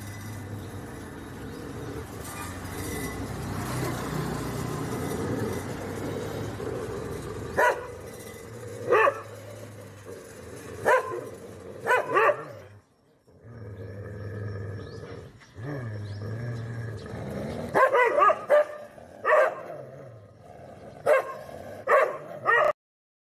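A dog barking in single sharp barks a second or two apart. After a short break, a second dog barks in a quicker run. A low steady hum runs underneath.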